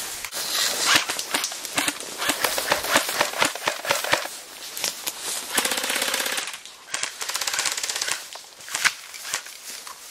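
Airsoft guns firing in rapid bursts: a fast, dense clatter of shots, with one longer continuous burst about six seconds in.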